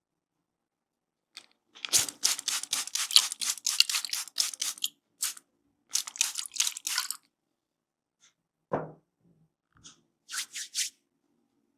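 Hands rubbing and working through hair and scalp during an oil head massage: runs of quick, crisp rustling strokes, several a second, with pauses between.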